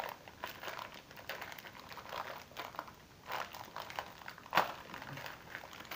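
Crinkling of a foil wrapper being handled, irregular and light, with one louder crackle about four and a half seconds in.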